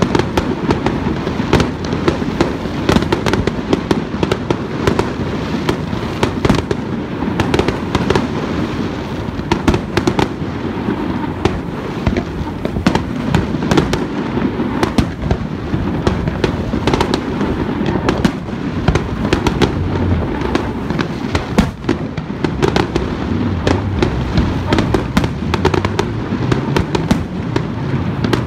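Aerial fireworks display: a dense, unbroken barrage of shell bursts and crackle, with many sharp bangs over a continuous low rumble.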